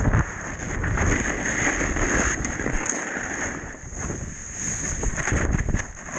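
Wind buffeting an action camera's microphone with snow spray rushing against it as a snowboard rides through powder, with a loud bump right at the start. A thin steady high whine runs underneath.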